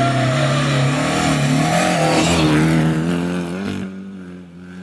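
Historic rally car passing close by at speed, its engine revving hard with the note rising and falling. The pitch drops as it goes past about two seconds in, and the sound falls away sharply after nearly four seconds.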